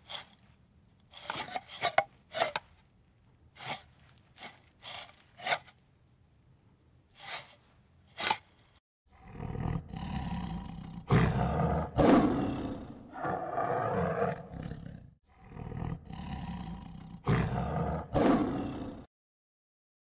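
Tiger roaring in a series of long, loud roars with short breaks between them over the second half. Before them comes a scattered run of short, quieter sounds.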